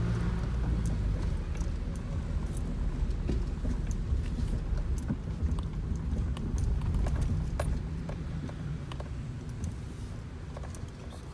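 Car driving on city streets: a steady low engine and road rumble with scattered light clicks and knocks, fading toward the end.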